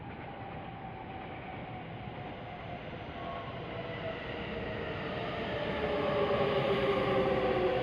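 Electric commuter train pulling into the station, growing louder as it nears, its motor whine falling in pitch as it slows.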